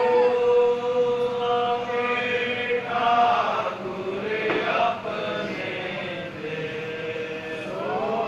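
Sikh congregation chanting together in long held notes that rise and fall.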